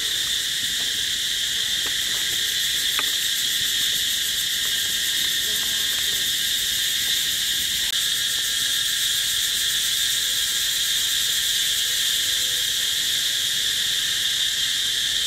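Steady chorus of insects in the forest: a constant, high-pitched buzz that does not let up.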